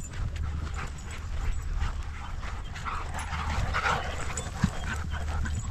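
Several dogs playing rough together, with their play noises loudest about three to four seconds in.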